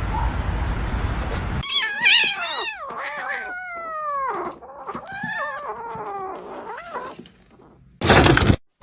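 Cat meowing: a run of drawn-out calls, most of them falling in pitch, after a steady background hiss. Near the end comes a short, loud burst of noise.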